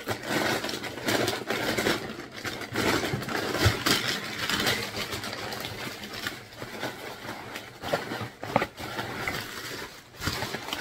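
Hands unpacking a parcel: cardboard box flaps rustling and scraping, then plastic bubble wrap crinkling and crackling as it is pulled out and handled, with irregular crackles throughout.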